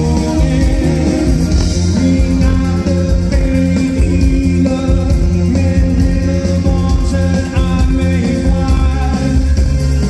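Indie rock band playing live through a loud concert PA, heard from within the crowd: drums, bass-heavy guitar and keyboard, with a lead vocal.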